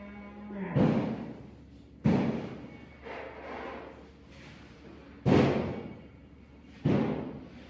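A short low tone, then four heavy thuds, each with a ringing tail that fades over about a second, spaced one to three seconds apart, with softer knocks between the second and third.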